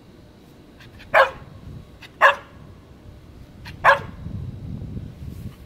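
Keeshond barking three times: short single barks about a second apart, the third after a longer pause.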